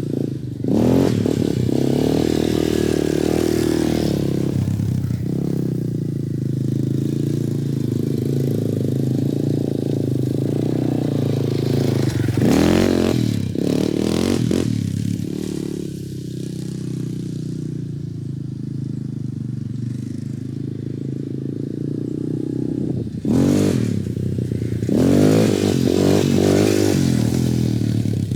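Yamaha Raptor 250 ATV's single-cylinder four-stroke engine running while ridden, the throttle opened several times so the engine note climbs and falls back.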